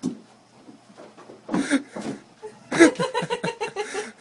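People laughing and chuckling in short bursts: one brief laugh about a second and a half in, then a longer run of quick laughter near the end.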